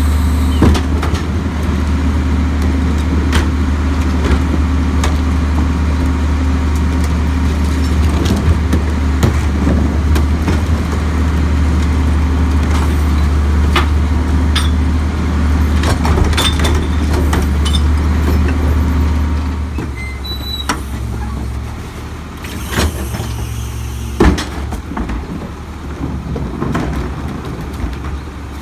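Crane Carrier garbage truck's diesel engine running steadily behind a Leach rear-loader body while the tippers lift and dump carts, with scattered knocks and bangs of plastic carts against the hopper. About twenty seconds in, the engine note drops to a quieter, lower idle.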